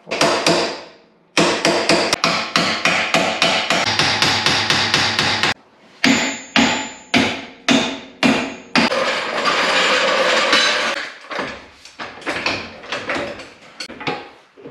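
Hammer striking the metal differential case to break the RTV sealant holding it to the axle housing: a quick run of sharp metallic blows, then slower single blows about twice a second. Near the end comes a few seconds of scraping noise and a few scattered knocks.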